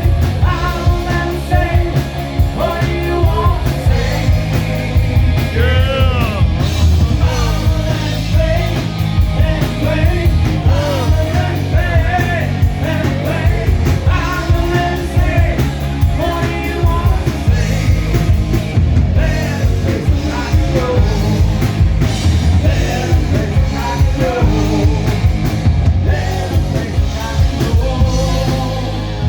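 A rock band playing a song, with a lead singer over a steady drum and bass beat.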